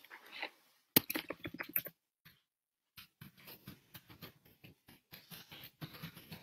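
Quick, irregular tapping and clicking on a computer keyboard: a short run about a second in, then after a brief pause a longer run of quieter taps.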